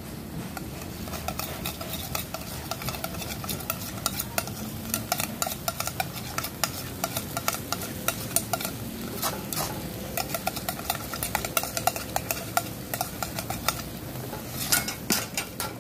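Chicken stirred in a wok of simmering honey and soy caramel sauce: a utensil clicking and scraping irregularly against the pan over a steady sizzle.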